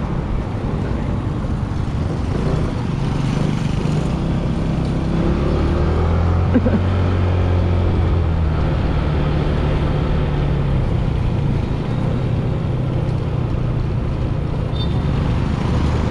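A motor vehicle engine running steadily over background traffic noise, its low hum strongest in the middle, with one brief sharp sound partway through.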